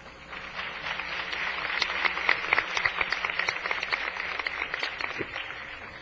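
Audience applauding, swelling after about half a second and fading toward the end.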